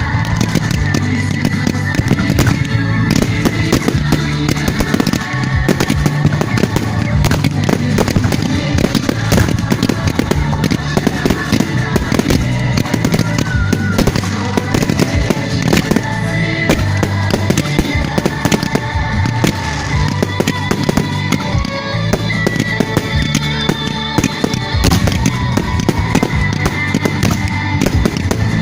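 A fireworks display: rapid crackling and banging throughout, over music with a steady bass line.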